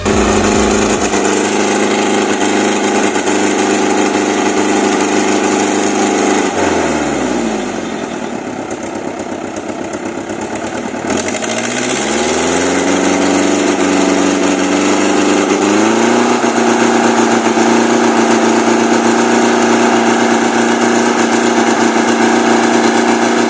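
Old truck engine pulling at high revs. About seven seconds in the revs drop away to near idle, then climb back over a few seconds and hold high again.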